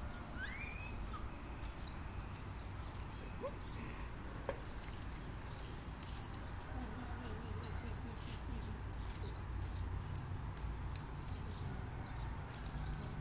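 Outdoor ambience: a steady low rumble with a few faint high chirps, one rising chirp near the start, and a single sharp tick partway through.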